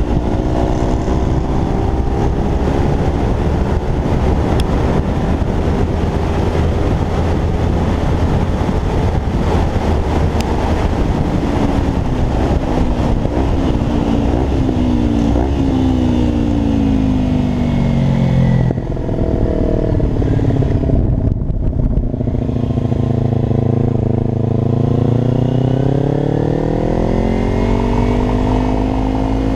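Kawasaki Ninja's small parallel-twin engine heard from the rider's seat under heavy wind rush, revving up and shifting up through the gears. About two-thirds through the revs drop sharply as the throttle is rolled off and the wind noise eases, then the engine pulls up through the revs again near the end.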